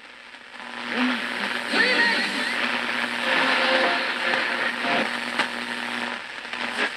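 Hallicrafters S-38D shortwave tube receiver tuned between stations: hissing static through its speaker with whistling tones that slide in pitch, starting about a second in.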